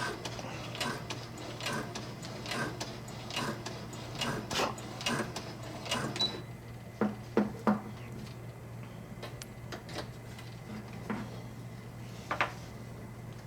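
Brother SE-400 sewing machine stitching slowly through thick nylon webbing, one needle stroke roughly every second over a steady low hum, stopping about six seconds in. Three sharper clicks follow about a second later.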